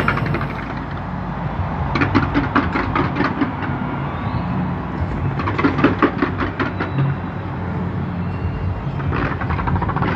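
Fireworks going off in rapid salvos of sharp bangs and crackles, three quick flurries a few seconds apart, over a steady low hum.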